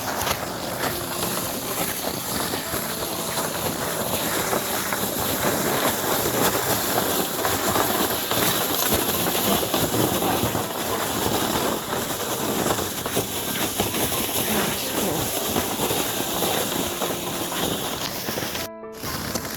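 Footsteps crunching on hard-frozen snow at around −17 °F to −20 °F: a dense, unbroken run of crunches with short squeaky tones. The sound drops out briefly near the end.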